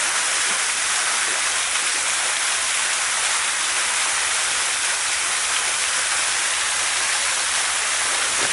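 Steady rushing of a small waterfall pouring into a pond, an even hiss without changes.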